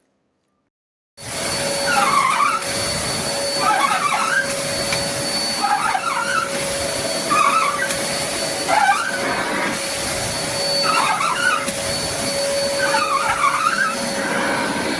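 Cecotec Conga Powerbag 2500 Compact Plus 850 W bagged canister vacuum cleaner running at full suction. It comes in suddenly about a second in, with a steady whine and a warbling shift in pitch about every one and a half seconds.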